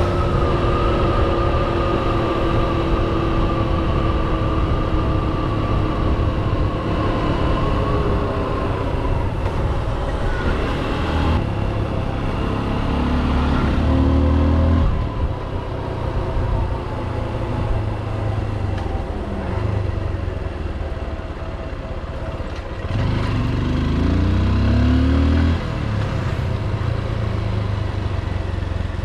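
Motorcycle engine running on the move: its note sinks slowly over the first several seconds as the bike slows, then twice rises in short revs that cut off sharply, about halfway through and again near the end.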